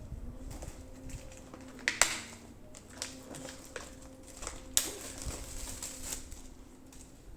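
Handling of a keyboard's box and packaging: scattered rustles and light clicks, with two sharper clicks about two seconds and about five seconds in.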